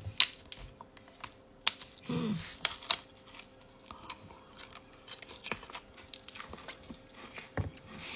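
Scattered sharp clicks and crunches as the knafeh-filled Easter egg is handled and bitten into, with a short low hum of voice about two seconds in.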